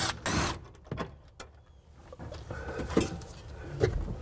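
A Milwaukee cordless power tool runs briefly on a trim fastener at the start, then a plastic interior trim panel clicks and scrapes as it is worked loose and lifted out.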